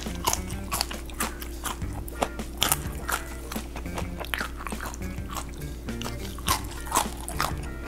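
Close-miked chewing and biting of deep-fried Korean starch jelly (muk), many short sharp mouth clicks and crunches, over background music.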